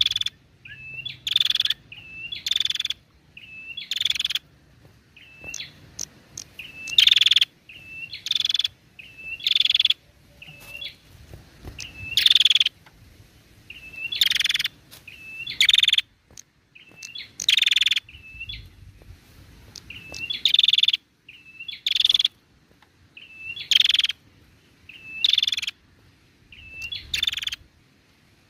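A caged female ashy tailorbird (called prenjak) calling over and over, about once every second and a half: each call is a short hooked whistle followed by a louder, harsh buzzy note.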